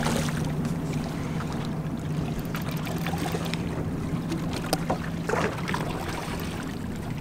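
Wind and water noise around a bass boat, over a steady low hum, with a few light clicks and knocks.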